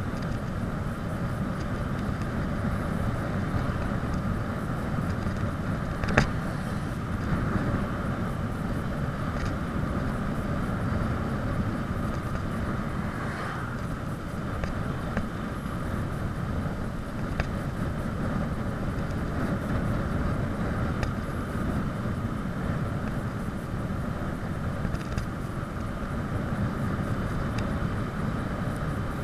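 Wind rushing over the microphone and tyre noise on a bicycle speeding downhill on asphalt, a steady rush throughout, with one sharp knock about six seconds in and a few faint ticks.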